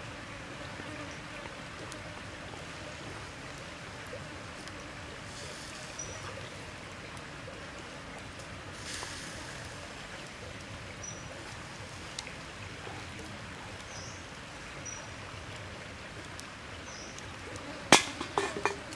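Strips of pork belly sizzling in a wire grill basket over a wood fire, a steady hiss, with a quick cluster of sharp pops near the end.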